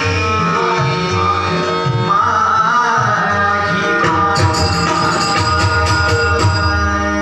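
Live devotional group music: a sung melody over sustained pitched tones and tabla-type hand-drum strokes. About four seconds in, a quick, steady rhythm of crisp high strikes joins the drumming.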